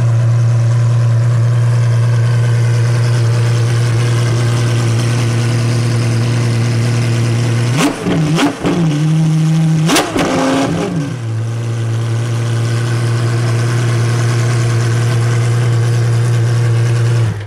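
Apollo Intensa Emozione's naturally aspirated V12 idling steadily through its exhausts. The throttle is blipped twice in quick succession, about eight and ten seconds in, and the engine rises sharply in pitch each time before settling back to a steady idle.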